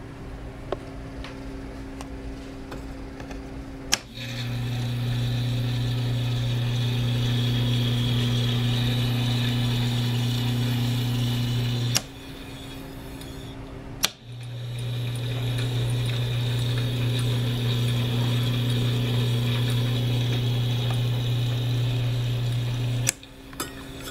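AMEGA M-3 16mm synchronous recorder's transport switched on and off. A click about four seconds in starts a steady motor hum and whir that runs about eight seconds and stops with a click. It starts again a couple of seconds later and runs about nine seconds more before a click stops it near the end.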